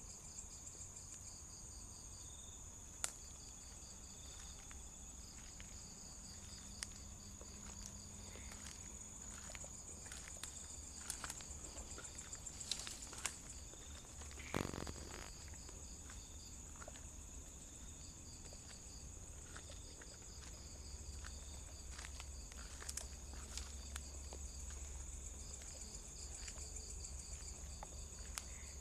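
Night insects: crickets chirping in steady pulsed rows over a continuous high-pitched insect trill, with scattered sharp clicks and a low rumble underneath.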